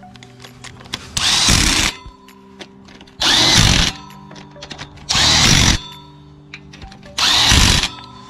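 Cordless drill run in four short bursts about two seconds apart, each winding up and back down, driving the valve-cover bolts on a V-twin lawn mower engine.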